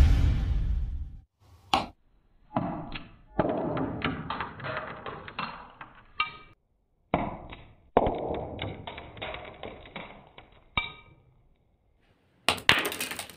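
Intro music fades out, then a 12 V incandescent bulb connected straight to 220 V AC crackles and pops in two long bursts of about four seconds each as it arcs, throws sparks and burns out from the overvoltage.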